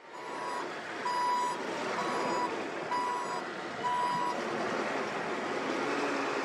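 A construction machine's reversing alarm sounding five even, high beeps about one a second, then stopping about four seconds in, over the machine's engine running steadily.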